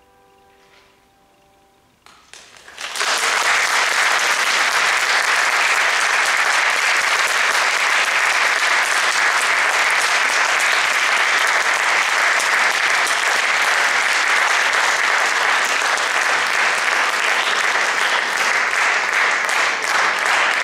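The final piano chord dies away into a brief hush, then audience applause breaks out about two and a half seconds in and carries on steadily.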